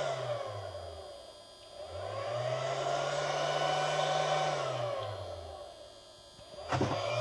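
A machine's whirring hum that rises in pitch and loudness, holds, then slows and fades again in slow cycles about five seconds apart, dipping lowest twice.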